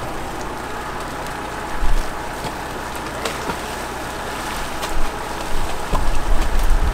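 Heavy tow truck's engine running steadily, with a few low bumps about two seconds in and again near the end.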